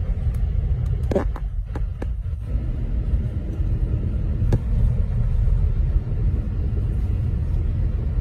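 Steady low rumble of a car driving slowly along a snow-covered road, with a few short clicks or knocks about a second in and one more near the middle.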